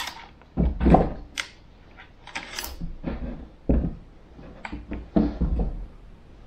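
A camera on a bendy-leg tripod being handled and set in place on a concrete ledge: a string of uneven bumps, scrapes and clicks, with deep thuds in the loudest ones, the loudest about a second in.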